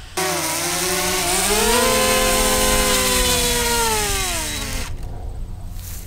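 Drone's motors and propellers whining at takeoff: the pitch rises over the first couple of seconds, holds, then falls away, and the sound cuts off suddenly about five seconds in.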